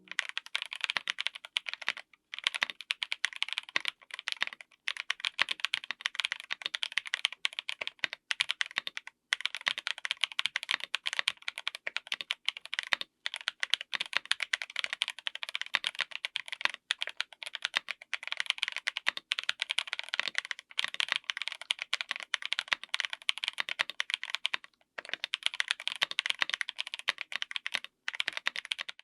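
Fast typing on a full mechanical keyboard fitted with stock Epomaker Bluebird linear switches on an FR4 plate: a dense stream of keystrokes broken by a few short pauses.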